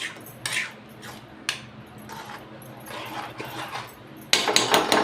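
Metal utensils clinking against a cooking pot or dish: a few separate clinks, then a quicker, louder run of clinks near the end.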